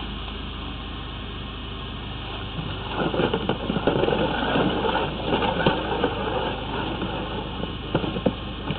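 High-pressure drain jetter's engine running steadily, with a louder, irregular rough noise joining about three seconds in.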